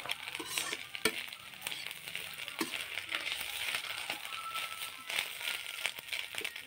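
Shredded bamboo shoots and onion sizzling in hot oil in an iron kadai, stirred with a metal spatula that scrapes and clicks against the pan now and then.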